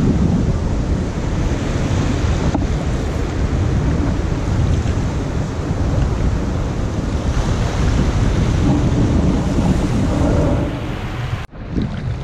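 Wind buffeting the microphone over the wash of the sea, a dense, steady rumble strongest in the low end. It cuts off abruptly near the end and picks up again, unevenly.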